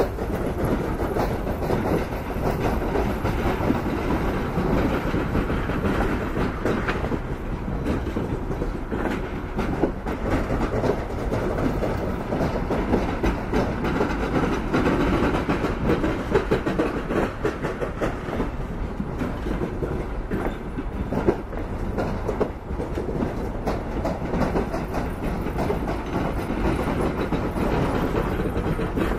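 Double-decker passenger coaches rolling past over the station pointwork: a steady wheel rumble with clicks and knocks from the rail joints.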